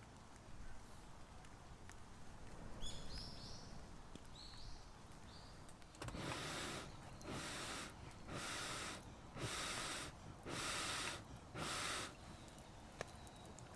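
A bird chirps a few short notes, then six regular rasping strokes follow about a second apart, with short gaps between them.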